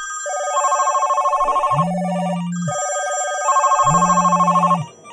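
Several telephones ringing at once, their electronic trilling rings overlapping. The rings come in repeating bursts of about two seconds with short gaps, and a lower buzzing tone joins in during some of them.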